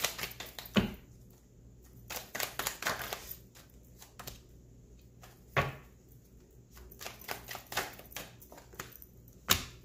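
A deck of tarot cards shuffled by hand: two bursts of rapid, crisp card flicking, with a few single sharp snaps between them, the loudest near the end.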